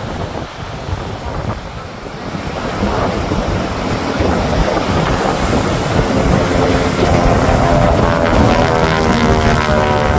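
Single-engine propeller airplane flying past. Its engine drone grows steadily louder from a few seconds in and is loudest near the end, over wind buffeting the microphone and surf.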